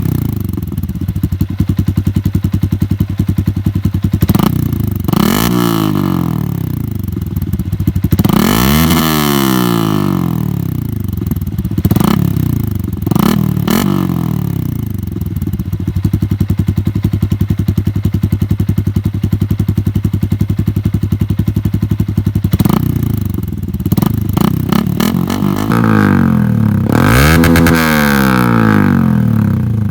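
Yamaha Sniper 150's single-cylinder four-stroke engine through an SC Project aftermarket exhaust, idling steadily with a bassy note. It is revved up and let fall back to idle several times: short blips early, around a third of the way through and just before the middle, then a run of revs near the end.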